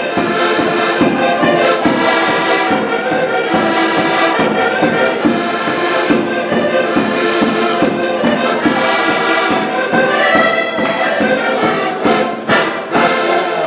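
Several accordions playing a folk tune together in unison, over a small guitar-like instrument strummed in a steady beat.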